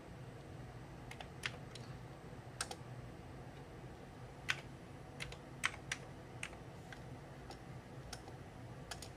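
Keys being typed on a Commodore 128 keyboard: about a dozen separate, irregularly spaced keystrokes as a filename is entered, the loudest near the middle.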